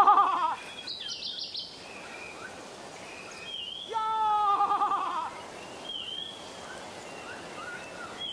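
A man's loud, quavering cry with a rapid tremble in pitch, heard twice: once cutting off about half a second in and again for about a second from around four seconds. Birds chirp in the background between the cries.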